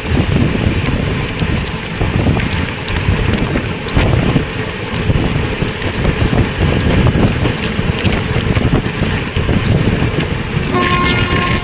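Train running, with its rumble and rattle on the track and wind buffeting the microphone. Near the end a steady tone of several pitches joins in.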